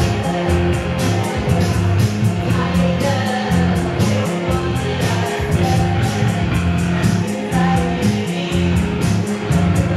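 Live rock band playing: keyboard and drum kit, with a woman singing into a microphone, over a pulsing bass line and quick, steady drum hits.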